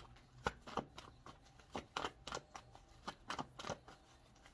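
Tarot cards being shuffled by hand: a run of quick, irregular soft card slaps and flicks.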